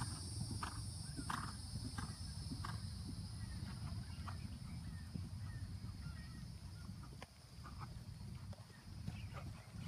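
Hoofbeats of a cantering horse on a sand arena, dull thuds about every two-thirds of a second that grow fainter after about three seconds. A steady high insect drone sounds underneath.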